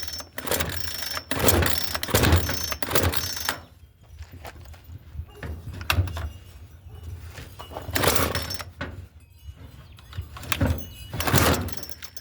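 Two-stroke chainsaw being pull-started: a quick run of starter-cord yanks in the first few seconds, then a few more spaced pulls, the engine firing briefly without catching and running.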